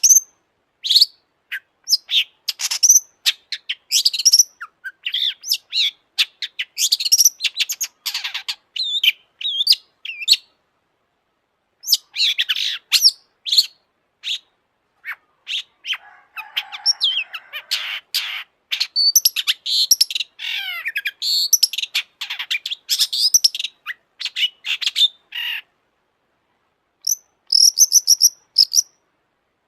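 Long-tailed shrike singing a fast, varied run of high chirps, whistles and trills in bursts, broken by pauses of a second or two, once about a third of the way in and again near the end.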